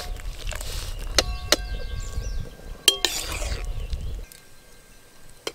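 Slotted metal ladle clinking against the rim of a metal pot three times, each strike ringing briefly, as cooked pasta is scooped out of its cooking water.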